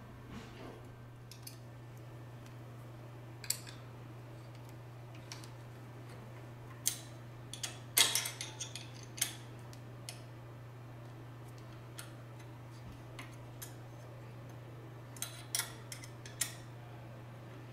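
Scattered small clicks and taps from hands handling the label applicator's tamp head, mounting bracket and air-line tubing, with a quick cluster of clicks about eight seconds in. A steady low hum runs underneath.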